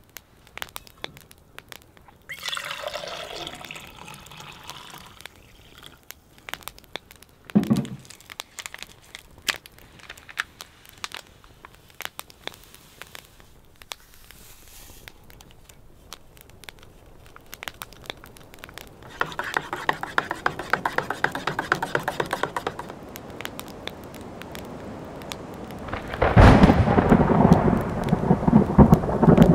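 Scattered sharp ticks of raindrops, thickening into a steadier rain patter about two-thirds of the way in, then, a few seconds before the end, a much louder rush of heavy rain with deep thunder rumbling.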